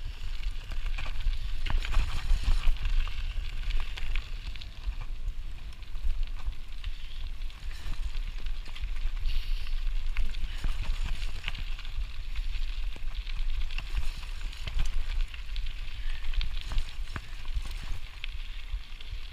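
Mountain bike riding a dirt and gravel trail: tyres crunching and crackling over the ground with scattered small clicks and rattles, under a steady rumble of wind on the microphone.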